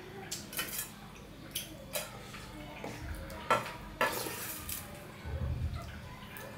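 Fingers mixing rice and curry on a steel plate, with sharp clicks and scrapes of the hand and food against the metal. About four seconds in comes a wet burst of eating sound as a handful is taken to the mouth.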